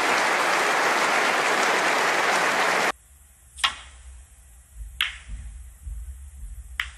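Audience applauding loudly, cut off abruptly about three seconds in. Then three sharp clicks of snooker balls being struck, roughly a second and a half apart, over a quiet low hum.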